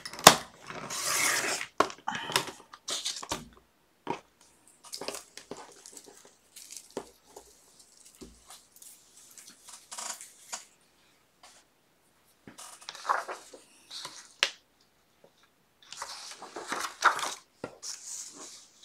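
Paper being cut and handled on a cutting board: rustling, scraping cutting sounds come in three groups, at the start, about thirteen seconds in and about seventeen seconds in, with scattered light clicks and taps between them.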